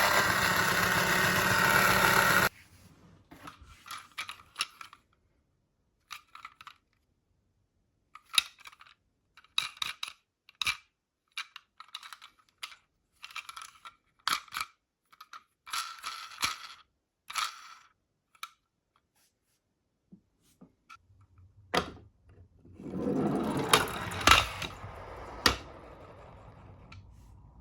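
A small toy motor whirs steadily and cuts off suddenly about two seconds in. Then come scattered light clicks and rustles of the toy being handled, with a louder rustle and a few sharp knocks near the end.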